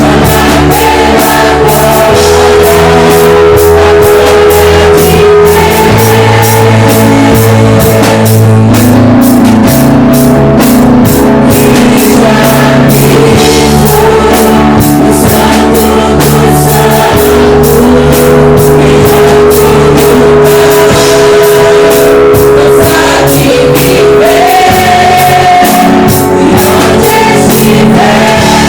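Live worship band playing: drum kit, guitar and sustained chords, with singing.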